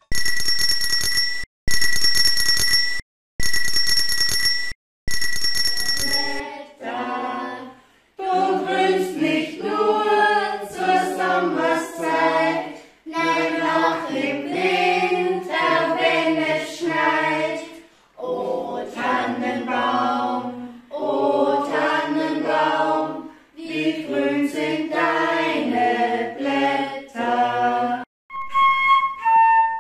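A small bell rung in four short bursts, then women and girls singing a carol together to a classical guitar. Near the end a flute begins a melody.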